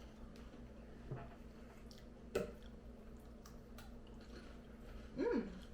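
Quiet chewing of a chocolate cookie stick, with small scattered clicks and one sharper click midway. A short falling 'mm' from the voice near the end.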